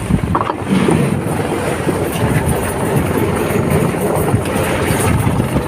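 Wind buffeting the microphone over the steady rumble of a boat on choppy water.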